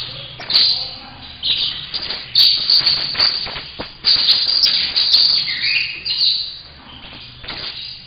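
Young saffron finch (canário-da-terra) singing a run of short, high phrases, one of them ending in a falling note about six seconds in. It is an eight-month-old bird just starting to put out its first song notes.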